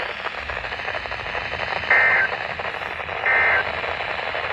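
Weather radio receiver on a weak, hiss-filled station, with EAS end-of-message SAME data bursts: short two-tone warbling data bursts. One comes about two seconds in, a second about a second and a half later, and a third starts right at the end.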